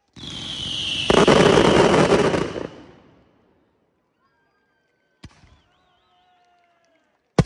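Fireworks bursting overhead: a rush of noise builds for about a second, then breaks into a second and a half of loud, dense bursts and crackle that die away. One sharp bang comes near the end.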